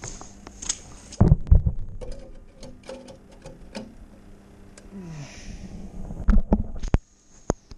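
Clogged roof drain being worked to clear it: deep throbbing thuds in two clusters, with a short falling gurgle between them and small clicks.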